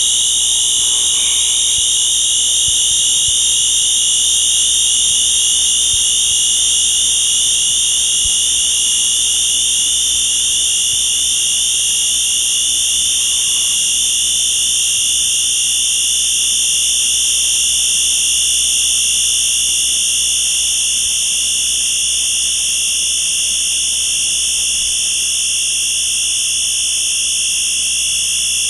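Experimental noise music: a steady, piercing high-pitched electronic drone in several shrill layers over a low hum, easing off slightly in level about two-thirds of the way through.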